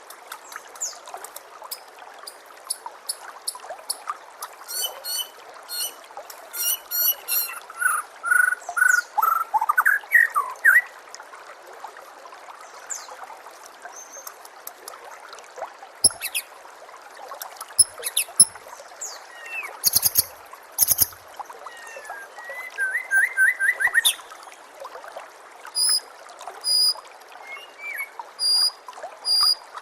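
White-rumped shama (murai batu) singing a varied run of whistles, trills and rapidly repeated high notes over a steady trickle of running water. A few sharp clicks come around the middle.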